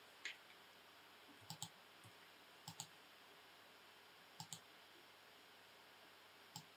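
Faint computer mouse clicks, mostly in quick pairs, about six times over quiet room tone.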